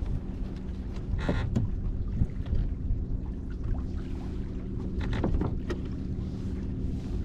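A boat engine running steadily on the water, a low rumble with a constant hum, with wind on the microphone and a couple of brief rustling noises about a second in and after five seconds.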